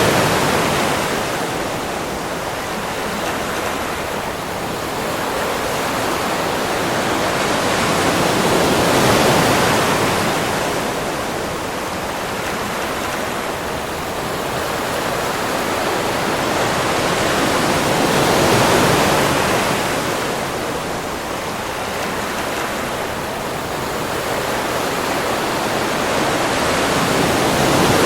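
Ocean waves washing ashore in a continuous rush of surf, swelling and easing in slow surges about every nine seconds.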